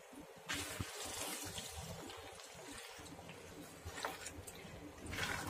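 A spatula stirring potatoes through freshly watered gravy in an aluminium kadhai: a wet, sloshing scrape, with sharper strokes of the spatula about four seconds in and near the end.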